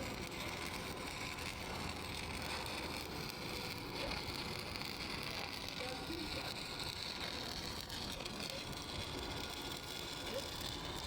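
Stick (SMAW) welding arc crackling and sizzling steadily.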